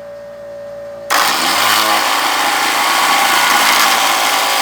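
A homemade mini lathe's electric motor is switched on about a second in, spinning up with a rising pitch, then running loud and steady. The lathe stands on legs with no damping underneath, which makes it shake when running.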